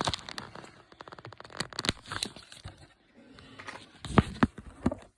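Plastic shrink-wrap being torn and crinkled off a box set of hardcover books, with a few dull knocks of the books being handled near the end.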